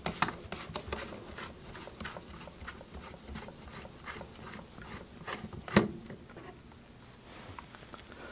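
Threaded nose cone of a Wind Monitor being unscrewed by hand: soft scraping and small clicks of the threads and fingers on the housing, with one sharper knock a little before six seconds in.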